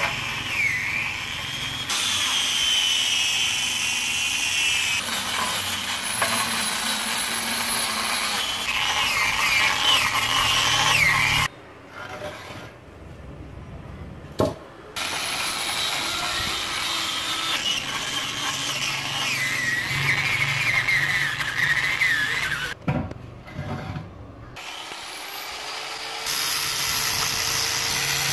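Angle grinder with a cup wire brush scouring rust and paint off a generator's metal outer shell, its whine wavering and dropping in pitch as the brush is pressed on. The brushing stops twice, with a single knock during the first pause. Near the end the grinder spins up with a rising whine before the brush bites into the metal again.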